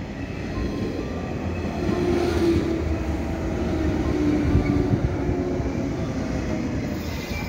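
Two coupled JR 115 series electric trains arriving at a station and rolling past close by. The wheels rumble on the rails, growing louder to a peak about four to five seconds in, with a faint steady whine in the middle.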